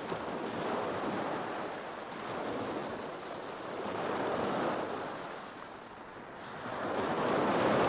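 Sea waves breaking and washing against the shore, a steady rushing that swells and fades in slow surges.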